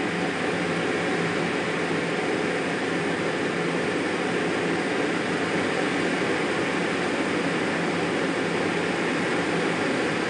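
Jet aircraft in flight heard from inside its closed cockpit: a steady, even rush of engine and airflow noise with a faint hum under it.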